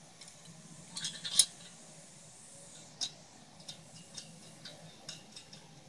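Light metal clicks and clinks, irregular, of a bolt, washer and nut being handled and fitted to a metal fence-post bracket, the sharpest about a second and a half in.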